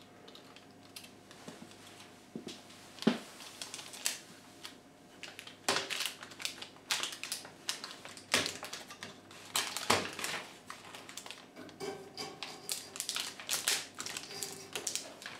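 Irregular clicks and taps of plastic as a washing machine's replacement circuit board is handled and pressed into its plastic control-panel fascia.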